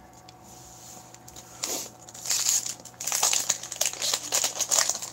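Hockey card pack wrapper being torn open and crinkled by hand. Quiet for about the first second and a half, then a dense run of crinkling and tearing that grows louder through the rest.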